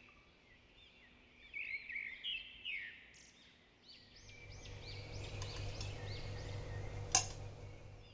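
Small birds chirping repeatedly in the background, in quick arched chirps. A low steady hum comes in about halfway, and there is a single sharp click near the end.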